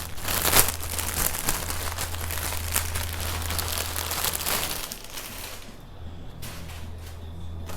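Packaging crinkling and rustling as it is handled and opened, with many small crackles. It stops about five and a half seconds in, leaving only a few faint ticks.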